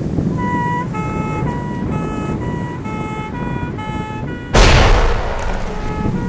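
A car alarm sounds in rapidly alternating electronic tones over a steady low rumble. About four and a half seconds in, a loud explosion hits and dies away over about a second.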